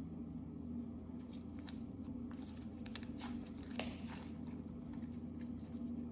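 Slime being squeezed and stretched by hand, giving scattered small sticky clicks and crackles, with two sharper pops about three and four seconds in. A steady low hum runs underneath.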